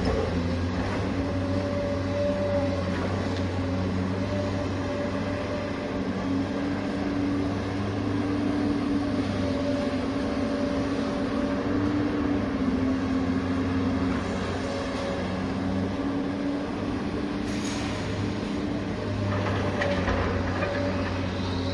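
A steady mechanical hum, like a small motor running, with a few held tones that waver slightly in pitch.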